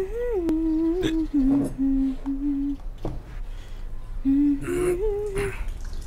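A person humming a slow tune in long held notes, broken a few times by short, sharp hiccups.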